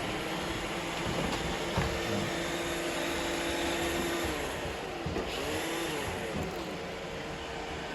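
Several robot vacuum cleaners running together, with a steady whir from their suction and brush motors. A motor whine rises and falls a few times after about five seconds.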